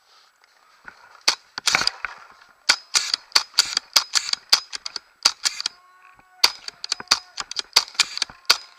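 Paintball markers firing: sharp pops in quick strings, the first about a second in, with a short lull around six seconds in.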